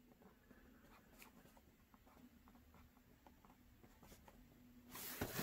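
Near silence: room tone with a faint steady hum and a few faint ticks. A brief soft rustle comes near the end.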